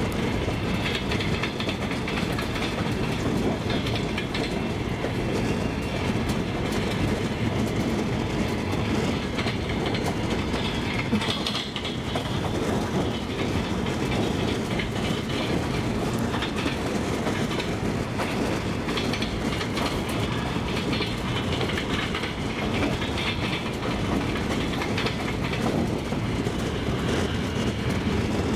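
Double-decker passenger train running along the track: a steady rumble with the clickety-clack of the wheels passing over rail joints.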